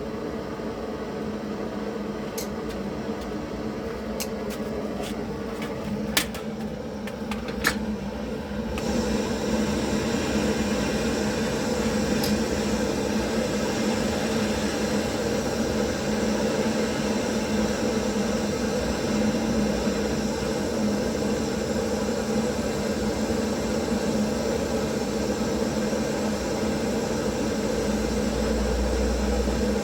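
A steady hum with a few sharp clicks, then, from about nine seconds in, a louder steady hiss of a torch flame heating a refrigeration filter drier's soldered joint for desoldering.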